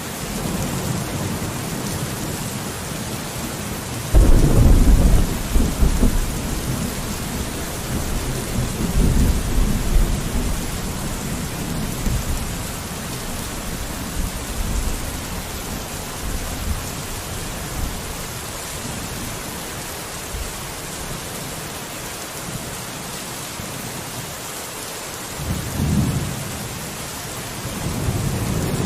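Steady rain falling on a window, with thunder: a sudden loud low rumble about four seconds in that rolls on with surges for several seconds, and another shorter rumble near the end.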